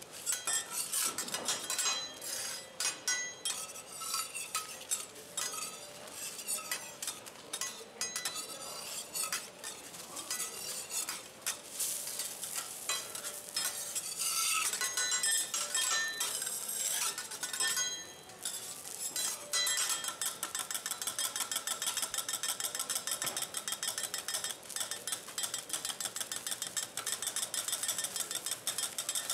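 Metal teppanyaki spatulas scraping and clinking on a steel griddle as a thin egg omelette is worked and folded. About two-thirds of the way through, this turns into fast, even chopping, the spatula edge striking the griddle as it cuts the folded egg into shreds.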